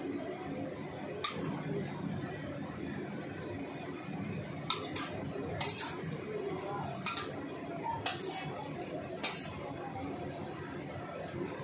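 Metal spatula scraping and clinking against a stainless steel wok while stir-frying cabbage and wood ear fungus. Six sharp clinks come at uneven intervals over a steady hiss.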